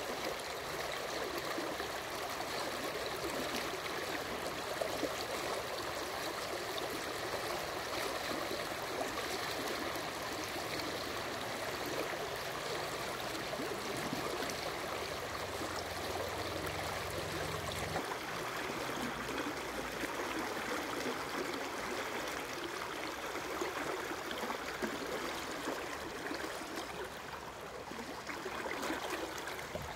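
Steady rushing of river current flowing around a wading angler, an even hiss of moving water with no distinct events.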